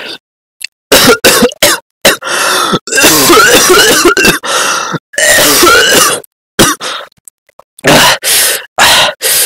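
A person coughing and clearing the throat loudly in several fits, some short and some lasting a couple of seconds, with silent gaps between.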